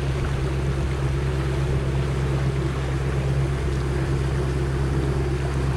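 Motorboat under way at steady speed: the engine is a constant low drone, with a rush of water and wind over it.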